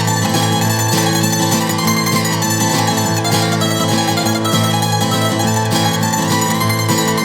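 Instrumental music led by plucked strings, playing steadily without vocals.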